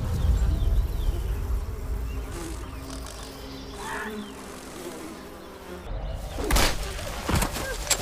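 Flies buzzing over a deep rumble. Near the end comes a sudden rush and a sharp heavy thud.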